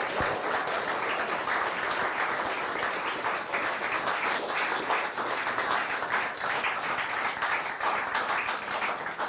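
A crowd of guests applauding, a dense, steady patter of many hands clapping.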